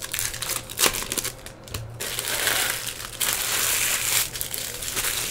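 Foil wrapper of a Topps Chrome trading-card pack crinkling in the hands as it is torn open: a few sharp crackles at first, then dense continuous crinkling from about two seconds in.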